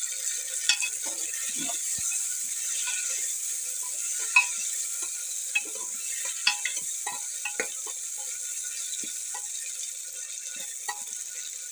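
Tomatoes and onions sizzling in hot oil in a pressure cooker, with a steady hiss. A steel ladle stirs them, scraping and clicking against the pot over and over.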